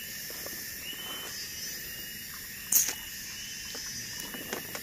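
Steady high insect chorus, with a few faint clicks and one sharp crack about three seconds in.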